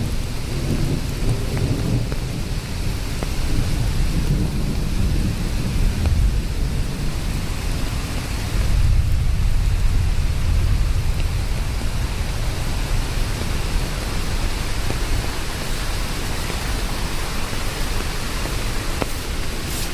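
Steady rain with low rolling thunder underneath that swells and fades several times, most strongly about halfway through.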